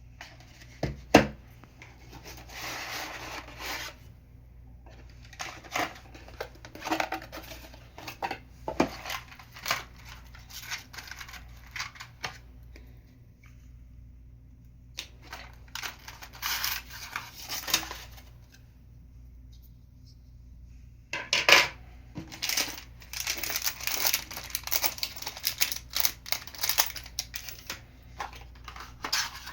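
Unboxing handling of a product box and its packaging: irregular bursts of cardboard and plastic rustling and scraping, with sharp knocks and clicks. The loudest knock is about a second in, with another after the middle.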